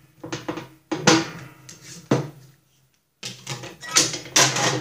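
Metal parts of a lawn mower deck's brake linkage knocking, clanking and scraping as they are handled and fitted. It comes as a string of sharp knocks and scrapes with a short pause about three seconds in.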